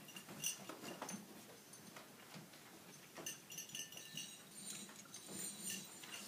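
Faint, scattered knocks, rustles and light clinks as stage props and scenery are shifted around a room, with a brief run of clinking and rattling about three seconds in.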